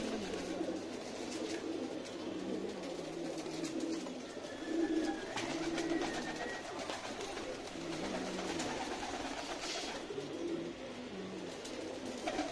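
Many domestic pigeons cooing together, with low coos overlapping and repeating throughout.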